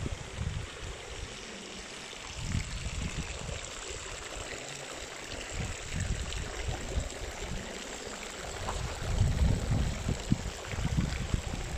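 Wind buffeting the microphone in irregular low rumbling gusts over a steady hiss, growing stronger in the last few seconds.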